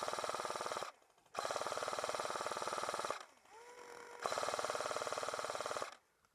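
An electric airsoft gun firing on full auto: three long bursts of rapid, even clicks, with short pauses between them.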